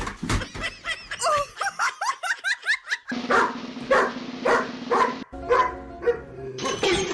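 A dog barking and yipping over and over: quick high yips at first, then short barks about two a second.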